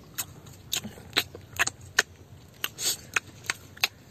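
Crisp sour starfruit being bitten and chewed: about a dozen sharp crunching clicks at uneven intervals, with a longer crackle a little before three seconds.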